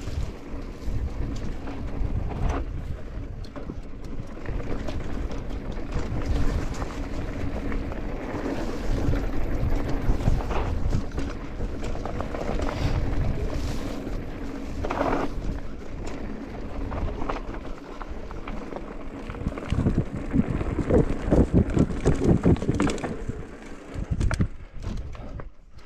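Mountain bike being ridden on a dirt trail: wind buffeting the microphone over the rumble of tyres on the ground, with scattered knocks and rattles from rough terrain and a stretch of heavier clattering near the end.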